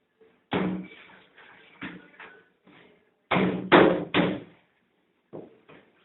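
Hollow knocks on a washing machine's cabinet, a small child's hand striking its panel, which rings briefly after each blow. There is one knock about half a second in, a lighter pair near two seconds, and a quick run of three louder knocks a little past three seconds.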